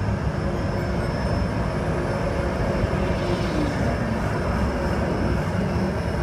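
Steady low engine drone of a simulated aircraft in flight, from a flight-simulator ride's soundtrack, with a faint steady hum over it.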